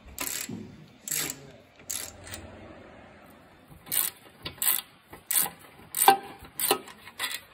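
Socket ratchet clicking in short bursts as it backs out a bolt, with a few scattered strokes at first and then a steady run of strokes about two-thirds of a second apart in the second half.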